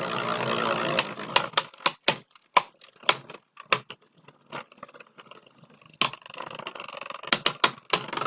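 Beyblade spinning tops battling in a plastic stadium: irregular sharp clicks and clacks as they collide, some in quick runs. A steady whirring haze of the spinning tops sits under the clicks at the start and returns about six seconds in.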